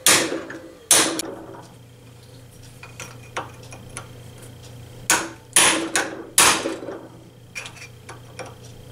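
Hammer striking a chisel held on the stud of a swivel caster, staking the metal over the bearing race to lock it on: sharp metallic blows, two about a second apart, then a quicker run of four, then a few lighter taps near the end.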